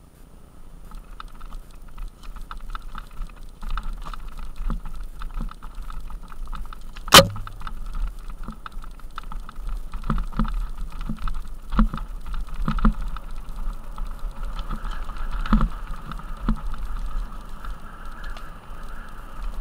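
Mountain bike rolling fast down a gravel track: tyres crunching over loose stones and the bike rattling over bumps, with the rear hub's rapid clicking buzz while coasting. One sharp, loud crack about seven seconds in as the bike hits something.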